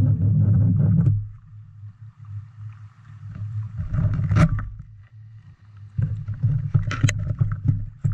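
Muffled underwater rumble heard through a submerged camera, louder for the first second and then dropping, with a few sharp knocks, the strongest about four and a half seconds in and another about seven seconds in.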